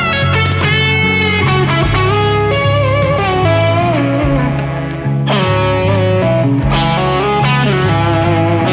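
Gibson semi-hollow electric guitar playing a blues lead with string bends and vibrato over a backing track of bass and drums. About five seconds in, a louder, fuller chord rings out, and another follows a second and a half later.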